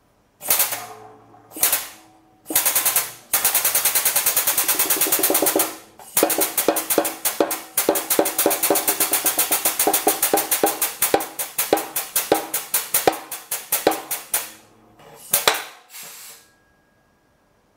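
Hydraulic shop press pressing a new crank pin into a KTM two-stroke crankshaft half, working in rapid rhythmic knocks. About six seconds in the rhythm slows and takes on a ringing tone: the change in sound that marks the pin reaching the flat plate and sitting flush.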